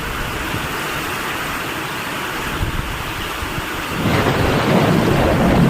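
Heavy rain pouring down in a steady hiss, growing louder and deeper about four seconds in.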